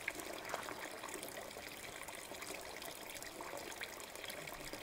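Water trickling steadily from a plastic pipe into a full bucket, with a couple of faint ticks in the first second.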